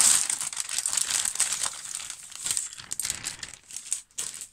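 Clear plastic kit bag crinkling and rustling as the plastic sprues are taken out of it and the bag is pushed aside: a dense crackle, loudest at the start and dying down toward the end.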